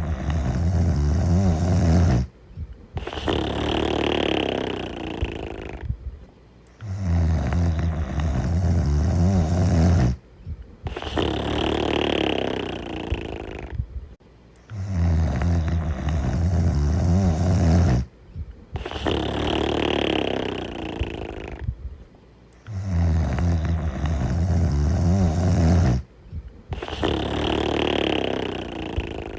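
Snoring in an even, repeating cycle. Each cycle is a low, pitched snore on the in-breath, a short pause, then a long, airy out-breath, and it comes round again about every eight seconds.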